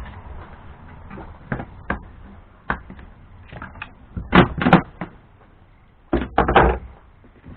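A series of irregular knocks and clunks of hard objects being handled and set down, the loudest clusters about four and a half and six and a half seconds in.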